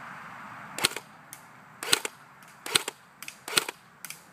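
JG AUG airsoft electric rifle firing single shots on semi-auto: four sharp shots about a second apart, with fainter clicks in between.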